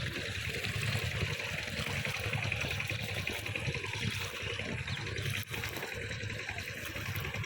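Muddy water in a flooded paddy field sloshing and trickling steadily.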